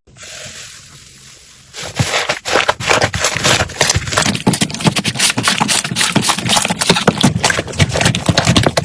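Slime being squished and poked by hand. About two seconds in, it starts a dense, fast crackling and clicking that goes on throughout.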